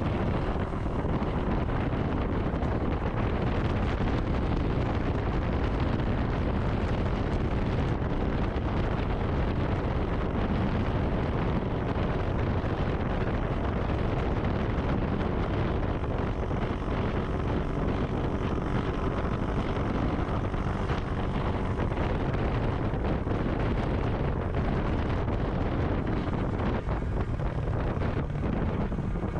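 Wind buffeting the microphone over a motorcycle running steadily on the move.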